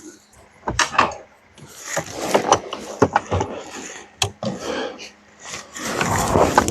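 Hand tools and engine parts being handled under the hood: scattered clicks, knocks and scraping, with a longer, louder scrape near the end.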